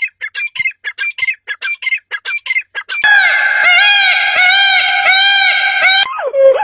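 Birds calling: first a fast run of short, high chirps about five a second, then loud repeated calls, each rising and falling in pitch, about two and a half a second.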